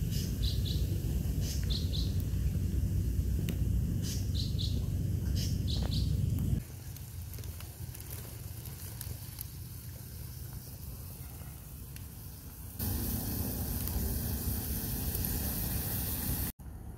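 Birds chirping in short pairs over a low rumble, then after a cut a quieter stretch, and from about three-quarters of the way in a steady hiss of kho quẹt (fish sauce, sugar and oil) simmering in an aluminium wok over a low wood fire.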